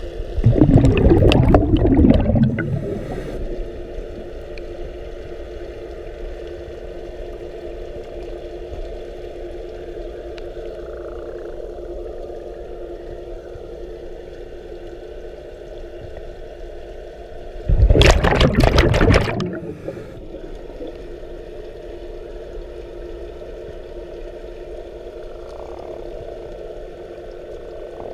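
Underwater sound through a head-mounted GoPro: a steady hum with a few held tones, broken twice by a loud rush of a scuba diver's exhaled regulator bubbles, about half a second in and again about 18 seconds in, each lasting a second and a half to two.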